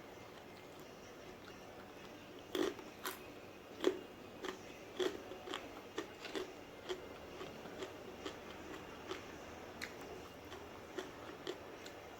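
Close-up chewing of crunchy fried food, starting about two and a half seconds in. Crisp crunches come about twice a second, then thin out toward the end.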